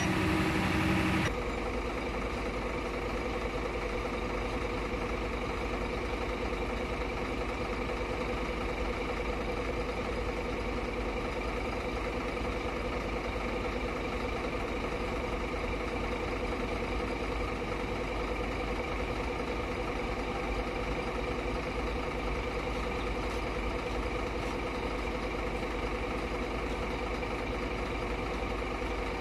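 Steady mechanical hum of an engine running at idle, with a louder layer that cuts off suddenly about a second in.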